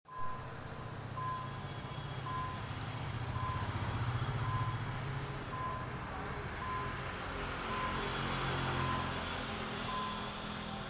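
Short electronic beeps at one steady pitch, about one a second, over the low rumble of a running engine.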